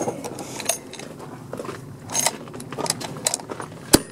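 Metal clicks and rattles from handling a Lee-Enfield rifle's action and its grenade-launcher cup discharger while it is readied to launch a tennis ball. There is one sharp, loud click just before the end.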